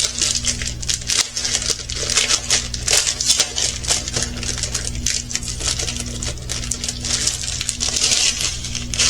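Small plastic bags of diamond-painting drills being handled and sorted, crinkling with many small clicks, over a steady low hum.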